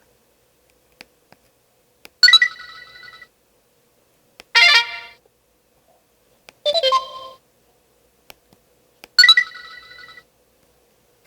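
Samsung Anycall V840 mobile phone playing four short electronic notification and effect tones one after another, each a bright chime of about a second that dies away. Faint small clicks come between them.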